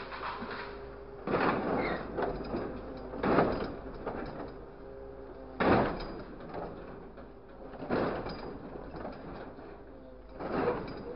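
Grapple truck's crane at work: a steady engine and hydraulic hum, broken five times by loud half-second bursts of noise as the claw swings and handles the scrap load.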